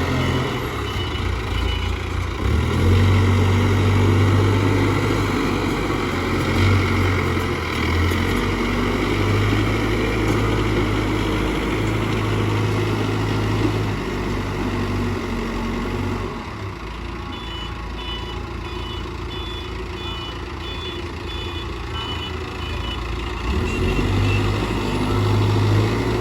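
Case 770EX backhoe loader's diesel engine working, revving up and down as the loader works. Its reverse alarm beeps at the start and again for several seconds after the middle, while the engine eases off.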